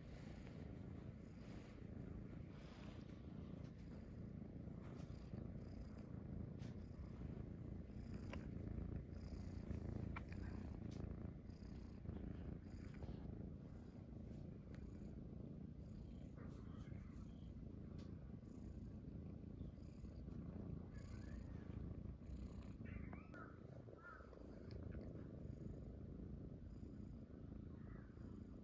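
Domestic cat purring right by the microphone: a steady low rumble, with a few faint short high chirps about three-quarters of the way through.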